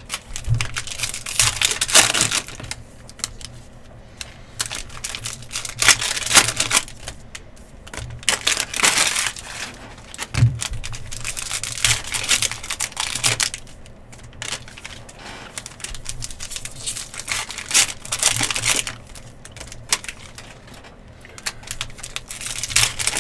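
Trading-card packs being torn open and their wrappers crinkled, with cards flicked and shuffled in the hands. The crackly tearing comes in bursts every few seconds, with quieter handling in between.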